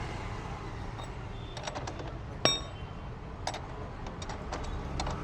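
Metal parts and tools clinking and clicking during reassembly of a scooter wheel, with one sharp ringing clink about halfway through, over a steady low rumble.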